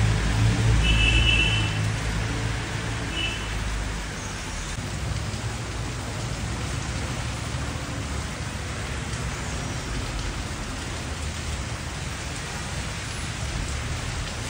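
Steady rain falling, an even hiss with a low rumble in the first few seconds. Two brief high chirps sound about one and three seconds in.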